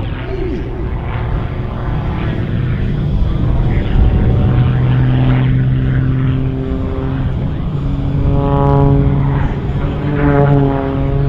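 MXS-RH single-engine aerobatic monoplane's engine and propeller droning overhead during aerobatics. The note holds steady for stretches and shifts up and down in pitch as the plane tumbles and rolls.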